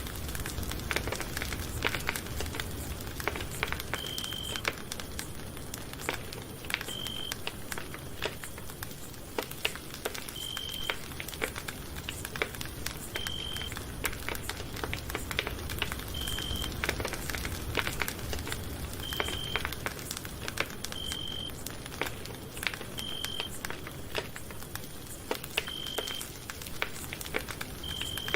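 Campfire crackling and popping: dense, irregular sharp snaps over a low, steady rumble of burning. A brief high tone sounds every two to three seconds.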